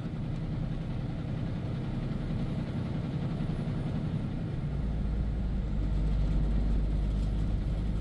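Truck's engine and road noise heard inside the cab while driving at steady speed. A deeper low rumble comes in about halfway through and holds.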